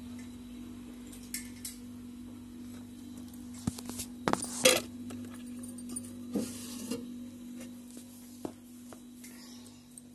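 Clinks and knocks of containers and dishes being handled, with the loudest cluster of knocks about four to five seconds in and a few single knocks after. A steady low hum runs underneath.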